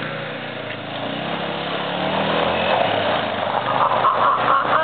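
ATV (four-wheeler) engine running as the quad rides over a dirt mound and comes closer, its pitch rising about two seconds in and growing louder toward the end.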